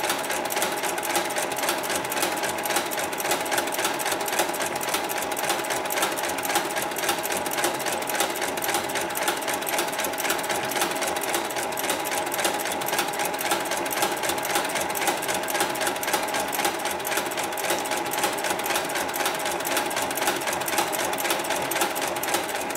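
Hightex 9204ZZ heavy-duty industrial sewing machine running steadily at speed, its needle clattering in a fast, even run of stitches over a steady motor hum as it sews rope onto netting.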